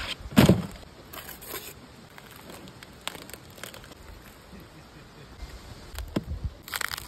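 A whole roasted pig being handled and pulled apart by hand on a folding table: a heavy thump about half a second in as the pig is flipped onto the tabletop, then scattered crackles, and a burst of crackling and tearing of crisp skin and meat near the end.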